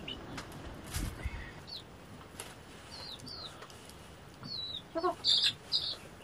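Chicks peeping in short, high chirps again and again, with a louder chicken call about five seconds in.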